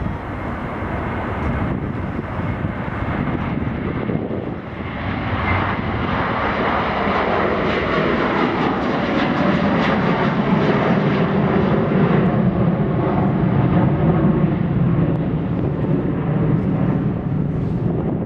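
Boeing 757 twin-jet airliner departing at takeoff power, a steady jet-engine roar that swells about five seconds in and is loudest past the middle as the aircraft comes closest.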